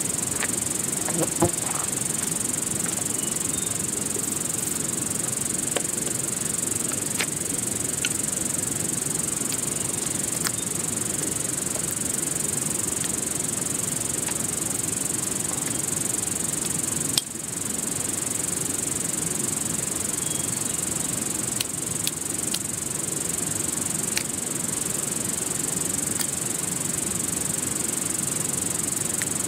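Steady outdoor rushing noise with a constant high hiss above it. Now and then come faint, sharp clicks and snaps from a branch being worked by hand with a small blade.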